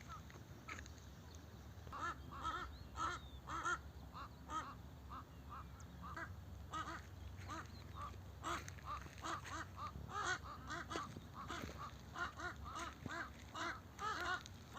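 A family of crows calling: many short caws in quick runs, several birds overlapping.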